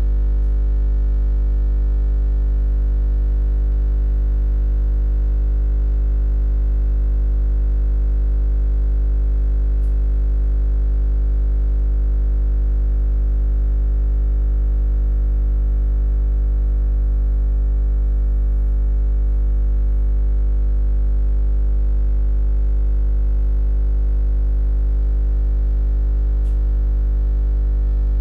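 A steady, unchanging low drone with a stack of overtones above it, the same from start to end with no rhythm or change in pitch.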